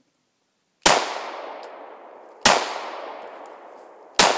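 Three shots from a 9mm Glock pistol, about a second and a half apart, each followed by a long echo that dies away.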